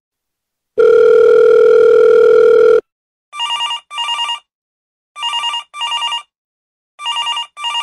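Telephone sound effect: a steady dial tone for about two seconds, then a phone ringing in double rings, three pairs in a row.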